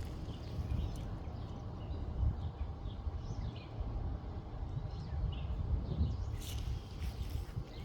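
Small birds chirping here and there over a steady low rumble, with a couple of clicks near the end.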